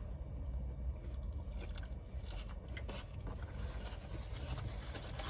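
Steady low rumble of a car heard from inside the cabin, with faint scrapes and clicks of plastic takeout containers and utensils being handled.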